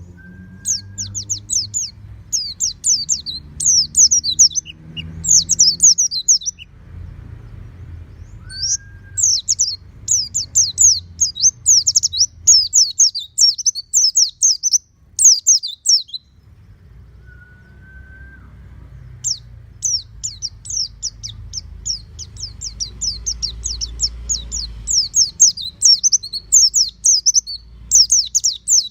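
White-eye (pleci) singing in long, rapid twittering phrases of high notes, three of them with pauses between. Each phrase is preceded by a short, lower whistle. A low background rumble runs underneath.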